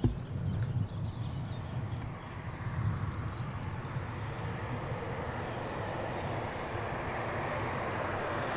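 Class 37 diesel locomotive with an English Electric V12 engine approaching on the line, its engine and rail noise growing gradually louder as it comes closer.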